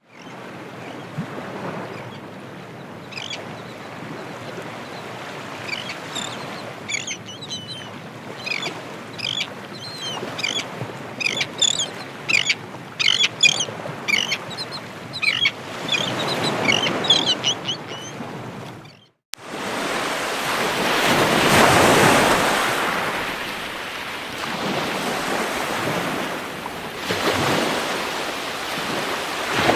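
Ocean waves breaking and washing onto a shore, with birds chirping in quick runs over the surf through most of the first two-thirds. After a brief drop-out, the surf comes back louder, swelling and falling away as the waves break.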